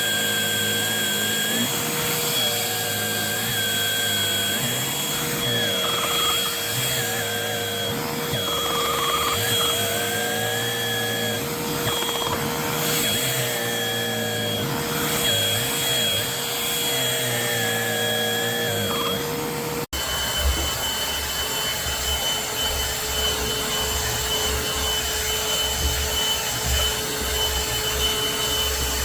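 Bissell Pet Hair Eraser cordless hand vacuum's motor running steadily with a high whine. About two-thirds of the way through the sound cuts abruptly to the vacuum running again, with more low rumble.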